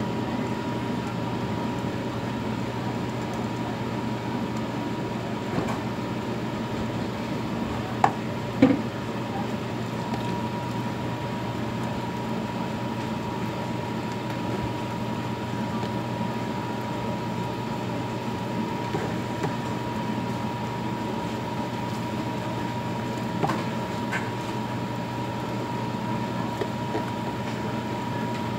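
Steady hiss and low hum of batter pancakes (jeon) frying in two pans on the stove. A few sharp clicks of a utensil against a pan: two about eight seconds in, one later.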